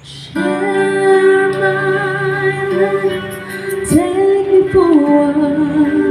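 A woman singing long held notes with vibrato over keyboard backing, played loud through a PA sound system. The music comes in about half a second in.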